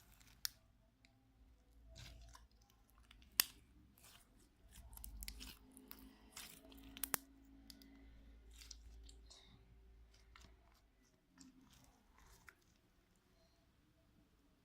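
Slime being squished and kneaded by hand for ASMR, with faint sticky crackles and pops and a few sharper clicks, the loudest about three and a half seconds in.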